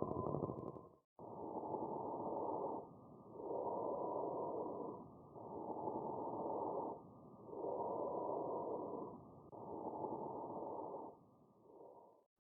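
Bronchovesicular breath sounds heard through a stethoscope: smooth rushing airflow, inhalation and exhalation about equal in length and loudness, with short pauses between phases. There are no crackles or wheezing tones. The recording starts about a second in, after a brief cut.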